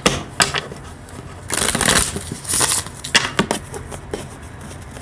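Tarot cards being shuffled and handled: two short rustling swishes of the deck about halfway through, with light clicks and taps of the cards around them.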